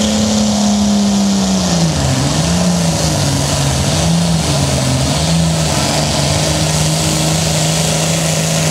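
John Deere 4020's six-cylinder engine running flat out while pulling a weight-transfer sled. About two seconds in, the pitch drops as the engine lugs down under the growing load. It wavers for a few seconds, then holds steady at the lower pitch.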